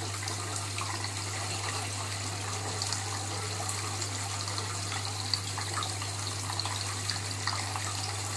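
Aquarium water running and bubbling: a steady splashing trickle with small crackles, over a steady low hum.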